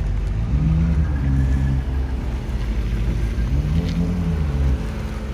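Mercedes-Benz S550's twin-turbo V8 revved twice from idle while parked, heard from outside through catless downpipes and a resonator-deleted exhaust on a Stage 2 tune. Each rev rises and falls in pitch over about a second, the two about three seconds apart, over a steady deep idle.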